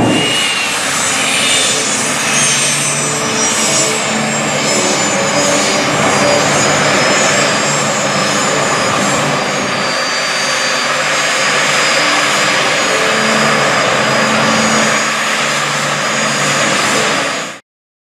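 Alpha Jet trainers' Larzac turbofan engines running at ground idle as the jets taxi on the ramp: a steady jet roar with a high turbine whine that slides slowly down in pitch. The sound cuts off suddenly near the end.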